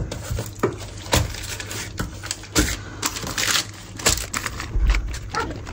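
Baking paper crinkling and rustling in irregular bursts as a large raw byrek is eased onto it in a baking tray, with a few light knocks.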